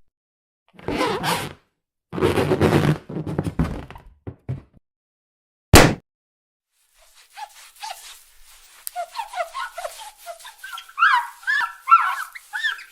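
A string of unrelated short sound effects: a few noisy bursts, then a single sharp thunk, the loudest sound, about six seconds in. After it comes a rapid run of short chirping, squeaky calls like an animal's, building up toward the end.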